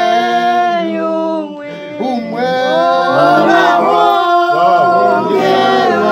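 A small church choir of men's and women's voices singing a cappella, holding long chords, with a short softer break between phrases about two seconds in.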